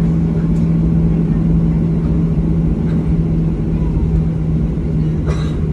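Boeing 737-700's CFM56-7B engines at low taxi power, heard inside the cabin as a steady drone with a constant hum over a low rumble. A short knock about five seconds in.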